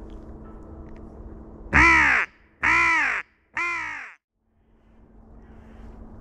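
Three loud, harsh crow caws in a row, about a second apart, the third a little weaker.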